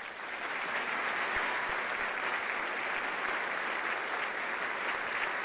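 Audience applauding: many people clapping at once, building over the first second and then holding steady.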